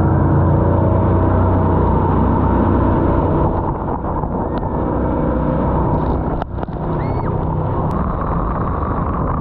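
Jet boat engine running steadily under way, with a steady rushing noise over its hum. The engine eases slightly about four seconds in.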